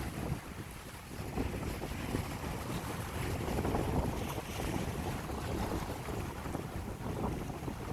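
Wind buffeting the microphone with a low rumble, over sea waves washing on the shore; the gusting swells a little about halfway through.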